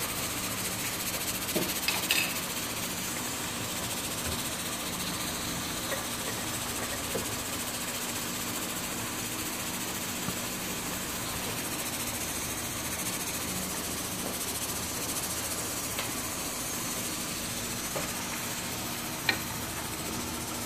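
Steady kitchen noise: an even hiss with a low hum beneath it. A couple of light clinks of the metal ladle against the pot come about two seconds in and near the end.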